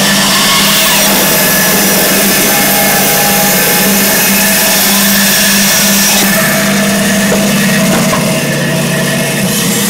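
Band saw running and cutting lengthwise through a turned wooden vase, with a steady motor hum under the blade's hiss; the hiss eases off about six seconds in as the cut finishes.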